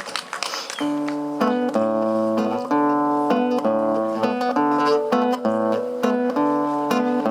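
Instrumental song intro: an acoustic guitar strumming chords in a steady rhythm, starting about a second in.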